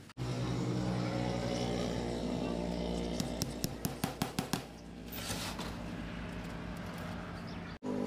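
A steady low mechanical hum, with a quick run of about eight light hammer taps, about five a second, on the wooden cage frame a few seconds in.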